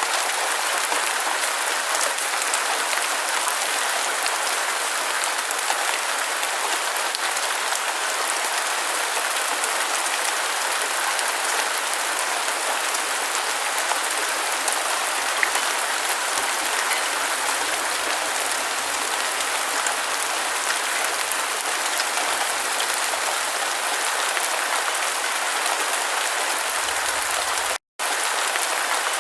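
Steady rain falling, a dense even patter of many drops. It cuts out completely for a split second near the end, then resumes unchanged.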